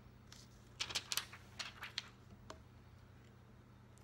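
Small clicks and taps of makeup items being handled, a tight cluster about a second in and a few scattered ones after, over a faint low hum.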